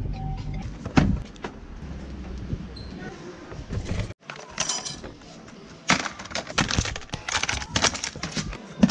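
Low road rumble inside a moving pickup's cabin for about four seconds. Then, after a short break, a run of clattering and rattling as tools in a plastic shopping basket are handled.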